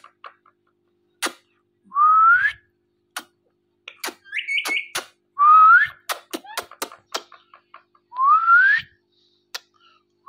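Indian ringneck parrot whistling: three rising whistles under a second each, about three seconds apart. Between them come a short chirp and a scatter of sharp clicks.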